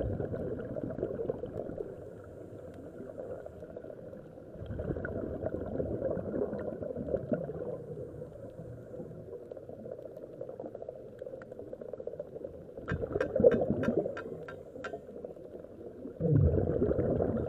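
Scuba diver's exhaled bubbles gurgling from the regulator, swelling in muffled bursts every few seconds. A quick run of about eight sharp clicks comes about two-thirds of the way through.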